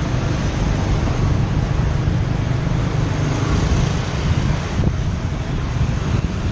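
Steady rumble of wind on the microphone of a moving motorbike, over the even hum of its engine and light street traffic.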